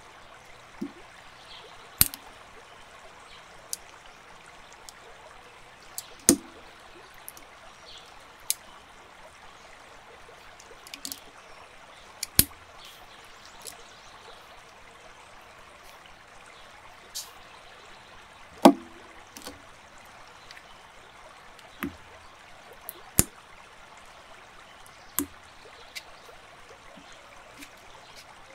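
Plastic building bricks clicking and knocking against each other and the table now and then, about a dozen sharp clicks at irregular intervals over a steady hiss.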